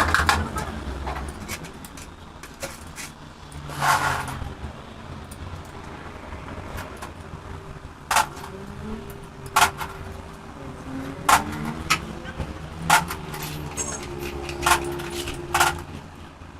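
Sharp metallic clinks and taps of hand tools and engine parts being handled, about seven spread a second or two apart, over a low steady hum.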